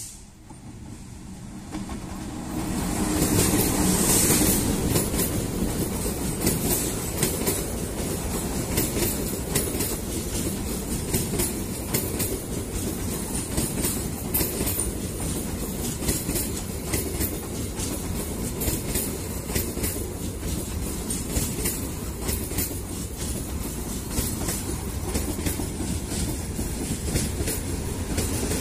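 A diesel locomotive approaches and passes close by, loudest about four seconds in. Passenger coaches follow, their wheels clicking steadily over the rail joints.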